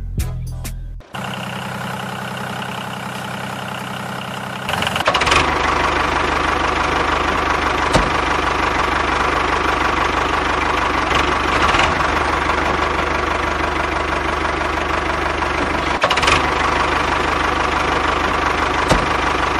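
Tractor engine idling steadily, then running louder and harder from about five seconds in, with a few sharp clicks.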